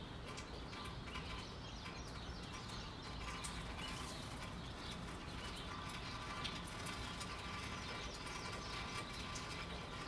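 Birds chirping in short calls scattered throughout, over a steady hiss of gentle rain and a low, even background rumble.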